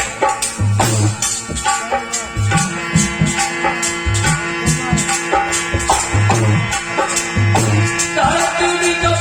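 Indian folk devotional music: a dholak beats out deep strokes under fast jingling hand percussion and a held, steady melody.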